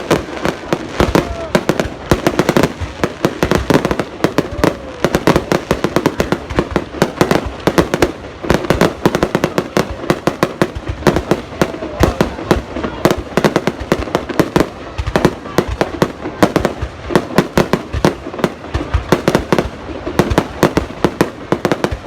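Fireworks going off in a dense, continuous barrage: many sharp bangs and crackles a second with no pause.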